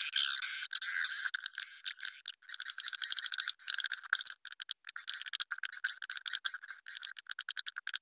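Swiftlet roosting call (suara inap) recording, the lure played in swiftlet houses to draw edible-nest swiftlets in to roost: high, dense twittering at first, then breaking into a fast run of short clicking chirps, several a second.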